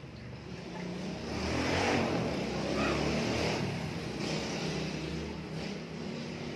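A motor vehicle passing, its engine and noise swelling to the loudest point about two seconds in, then slowly fading.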